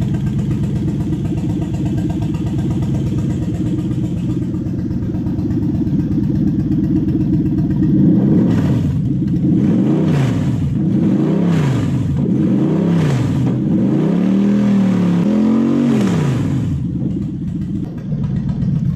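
Toyota 1UZ-FE V8 idling steadily, then revved in a series of about six blips, each rising and falling in pitch, before settling back to idle near the end.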